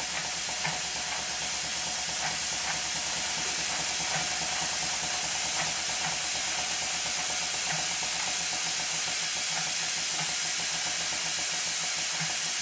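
Model 'Minnie' type traction engine running on compressed air: a steady hiss of escaping air with faint light ticks from the motion work. The engine keeps turning with the regulator pulled back, a sign that the regulator does not close fully, and the constant hiss comes from an air leak near the cylinder.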